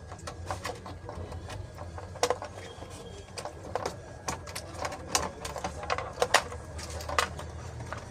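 Irregular plastic clicks and small knocks as wiring-harness connectors are handled and pushed into a Mercedes rear SAM module, over a low steady hum.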